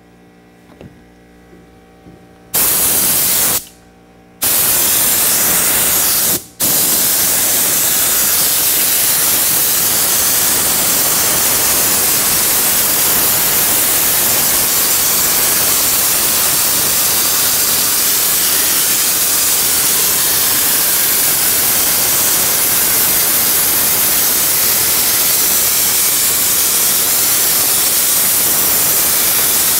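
Air-powered spray gun with a pressurised canister spraying upholstery glue: a loud, steady hiss that starts about two and a half seconds in, stops briefly around four seconds and again just after six seconds, then runs on unbroken.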